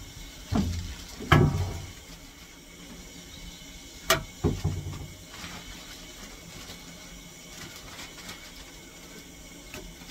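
Handling noises on a steam locomotive footplate: two dull thumps near the start and a sharp click about four seconds in, as the steel firing shovel is set down and pork steaks are taken from a plastic bag and laid on it, over a low steady background.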